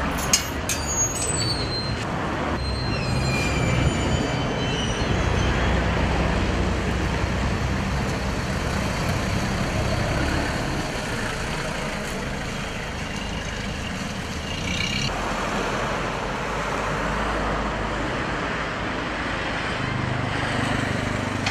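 Motor vehicles driving: a steady engine and road rumble, with a few sharp metallic clicks about a second in.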